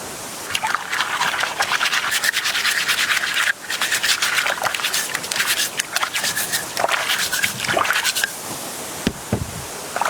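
Rough scraping and rubbing, a dense run of quick scratchy strokes with brief pauses.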